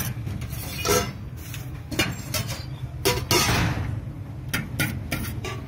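Scattered clinks and knocks of steel ladles and spoons against the stall's steel bowls, plates and containers, a dozen or so sharp strikes with a longer scrape a little past halfway, over a steady low hum.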